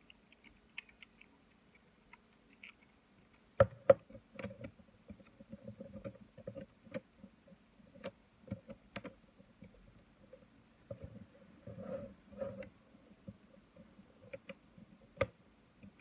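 Plastic and metal parts of a Nikon 18-55mm zoom lens clicking and tapping as they are handled and fitted back together. Two sharp clicks come about four seconds in and another near the end, with a string of softer ticks between.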